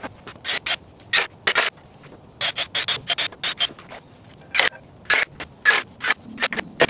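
Cordless drill/driver driving screws through wooden pallet planks, heard as a rapid, irregular string of short bursts, about three a second.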